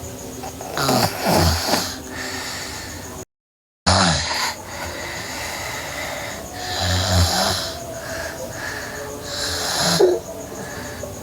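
A girl snoring in her sleep, one snore about every three seconds. The audio cuts out completely for about half a second around three seconds in.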